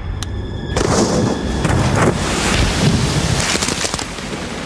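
Explosive charge going off in a water-filled plastic tank: a sudden blast about three-quarters of a second in, followed by a long rushing, splashing noise of water that slowly fades.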